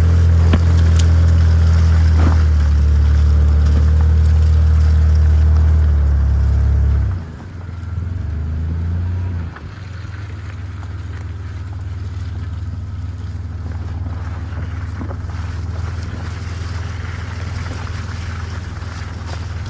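Yamaha Grizzly 600 ATV engine running steadily under load. About seven seconds in the engine note drops, rises briefly in a short rev, then settles into a quieter steady drone.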